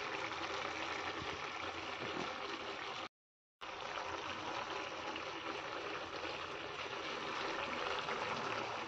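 Thick chana dal bubbling at a steady boil in a frying pan, a continuous bubbling and popping. The sound drops out completely for about half a second a little after three seconds in.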